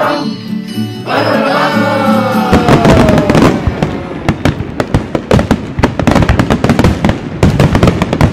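A song with music for the first couple of seconds, with a falling whistle, then fireworks exploding: dense, rapid bangs and crackles.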